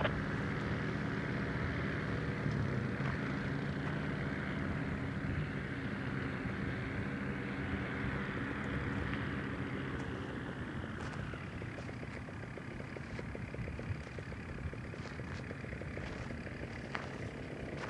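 An engine running at a steady pitch, growing slowly fainter, with a few faint clicks in the second half.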